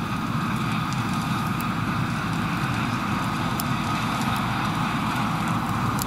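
Claas Lexion 480 combine harvester and Ford New Holland 8970 tractor running steadily side by side as the combine unloads grain into the chaser bin: a steady machinery drone with a faint high whine over it.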